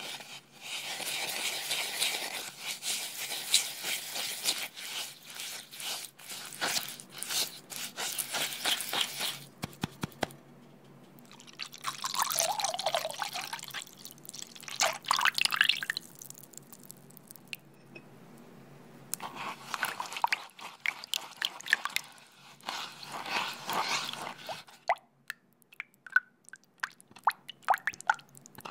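Spatula stirring and scraping sugar into a wet mixture in a wooden bowl, with many small clicks. After about twelve seconds soy milk is poured in, a splashing pour whose pitch glides as the bowl fills. More liquid pouring and sloshing follows, then scattered small drips and clicks near the end.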